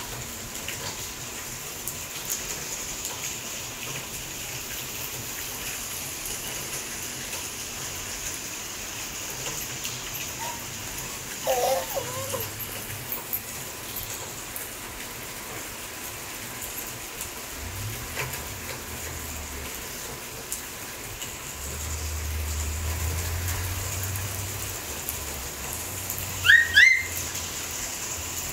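Light rain falling with a steady hiss. A low rumble swells and fades about two-thirds of the way through, and a few short, high rising squeaks, the loudest sounds here, come near the end.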